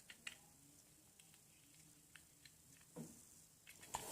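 Near silence: room tone, broken by a few faint light clicks near the start and a soft knock about three seconds in.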